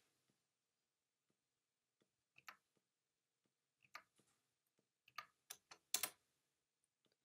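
Faint, sparse clicks of a computer keyboard and mouse, a dozen or so short keystrokes and clicks, with the loudest near the end.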